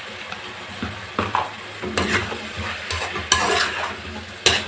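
Mutton intestines, onion and tomato sizzling in oil in a steel kadai. About a second in, a metal spoon starts stirring and scraping the pan, with several sharp metal-on-metal clinks.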